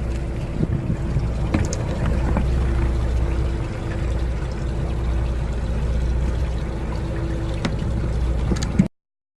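Fishing boat's engine running steadily with a low rumble and a faint held hum, with a few light knocks on board. The sound cuts off abruptly near the end.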